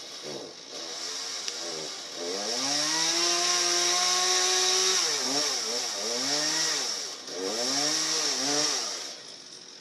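Two-stroke chainsaw revving: its engine rises to full throttle about two seconds in and holds there for about three seconds, then drops and is revved up again several times in shorter blips before settling back toward idle near the end.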